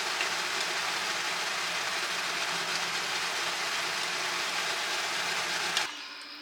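Steady sizzling hiss of food frying in a pan, with small crackles, cutting off abruptly near the end.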